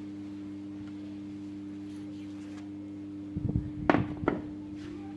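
A steady low hum, with a short cluster of knocks about four seconds in, two of them sharp.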